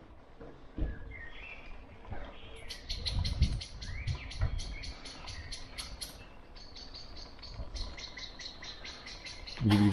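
A bird chirping in a fast, even series of short high notes, over low irregular rumbles and bumps from a bicycle rolling on cobblestones. Just before the end a motor vehicle's engine hum comes in loudly.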